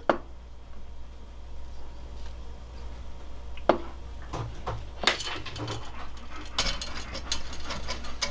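Brass parts of an Optimus Svea 123R stove clinking and rattling as they are handled: a sharp tick right at the start and another about three and a half seconds in, then a busy run of light metal clinks from about five seconds on.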